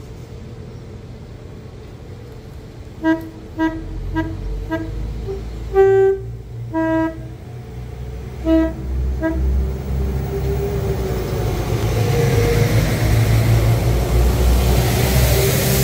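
Railway locomotive horn giving a rapid run of about eight short toots, two of them held a little longer. Then the low rumble of the passing train builds steadily and grows louder toward the end.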